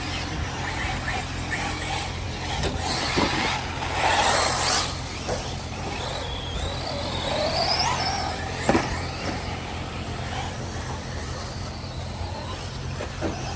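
Electric radio-controlled off-road cars running on a dirt track: motor whine rising and falling in pitch, with a louder rush of noise about four seconds in and a sharp knock near nine seconds, over a steady low hum.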